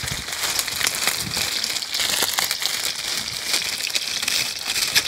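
Hot oil sizzling and crackling steadily with many small pops as batter-coated cá linh (Siamese mud carp) deep-fry.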